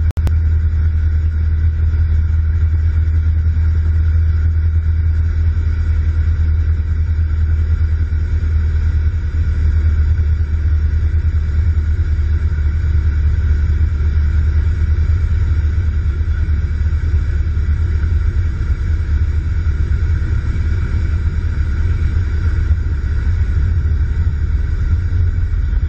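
Steady, loud cabin drone inside a small single-engine propeller plane in flight: the engine and propeller running with airflow noise, unchanging throughout.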